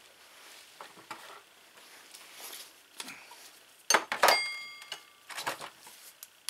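Steel hand tools clinking and knocking together as they are handled. About four seconds in, a loud metal clank rings briefly, and a few quieter knocks follow.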